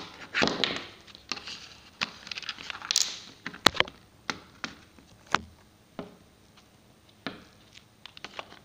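Small plastic toys and toy-house pieces handled on a hard surface: irregular light taps and clicks, with one sharper click a little before the middle and a brief scrape.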